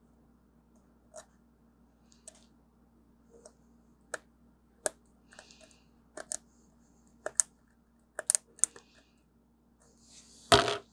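Sharp, irregular clicks and scrapes of a pointed pry tool picking hardened glue off an original iPhone's internals, the tip knocking against the metal shield, about a dozen strokes with a longer, louder scrape near the end.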